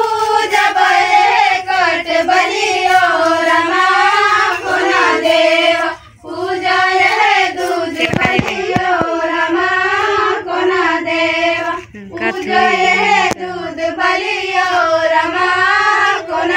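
A group of girls singing a Karam festival folk song together in unison, without instruments, in long wavering phrases with short breaks between them.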